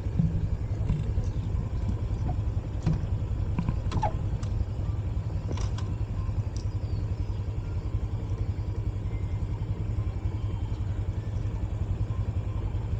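A vehicle's engine running steadily as it drives, a low rumble throughout, with a few short knocks and rattles in the first half.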